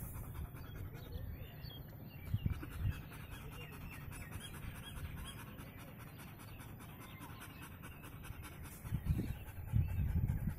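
German Shepherd panting steadily with its tongue out, in quick even breaths. A few low bumps stand out about two seconds in and again near the end.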